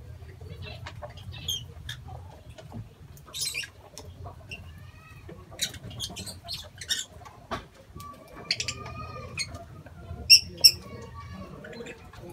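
A flock of lovebirds chirping and squeaking in short, high calls, scattered and overlapping, with two sharp, loud calls about ten seconds in. A low steady hum runs underneath.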